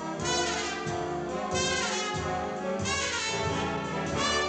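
Jazz orchestra playing brassy dance music, led by trumpets and trombones, with two falling slides in the middle.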